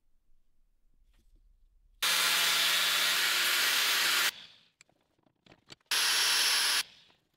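Corded angle grinder cutting a clamped steel bar, in two loud spells: one of about two seconds, starting abruptly about two seconds in, and a shorter one near the end. Each trails off as the cut ends, with a few small clicks between them.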